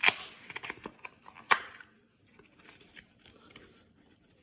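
Card packaging being opened and handled: two sharp tearing or snipping sounds, one at the start and one about a second and a half in, with small crackles between, then light rustling.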